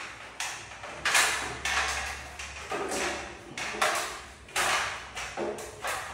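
Irregular knocks and clatters, about two a second, each trailing off in a short echo from a bare room: bare feet climbing a metal stepladder, then a plastic LED downlight being handled on top of the ladder.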